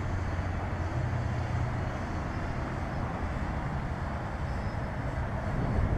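Gusty wind buffeting the camera microphone: a low, fluttering rumble.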